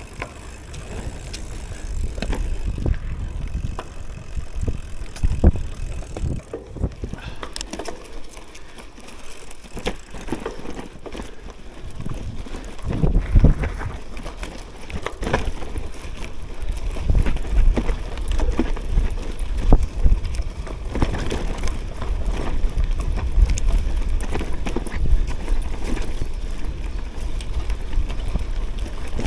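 Gravel bike rolling along a dirt forest trail: tyres on dirt, with frequent short knocks and rattles as it rides over bumps, over a steady deep rumble.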